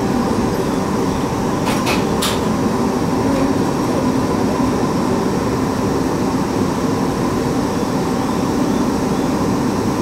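Cabin sound of a JR East 701 series electric train: a steady rumble with a few even humming tones that neither rise nor fall. Two sharp clicks come about two seconds in.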